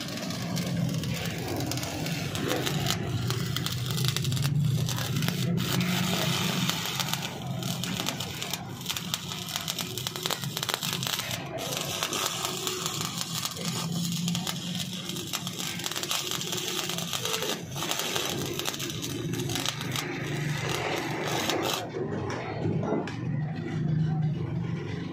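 Stick (arc) welding: the electrode's arc crackling and sizzling steadily as it lays a bead on steel, breaking off briefly near the end.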